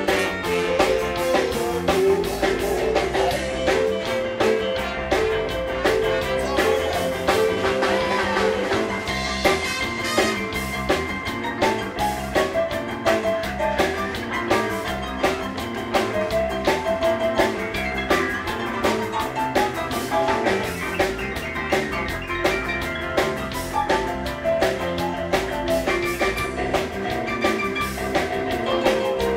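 Live band playing a blues jam, with a drum kit keeping a steady beat under held instrumental notes.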